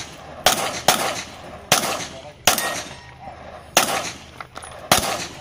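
Six gunshots fired by a competitor shooting a practical-shooting (IPSC) stage, at uneven spacing with the first two close together.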